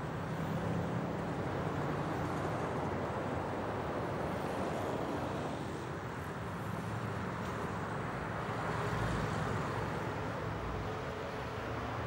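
City street traffic: cars passing along the road, the engine and tyre rumble swelling twice as vehicles go by.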